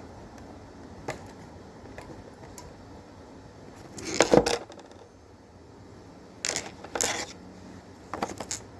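Packing tape on a toy box being cut and pulled open: scattered light clicks and knocks of the box being handled, with a short tearing scrape about four seconds in and two more about six and a half and seven seconds in.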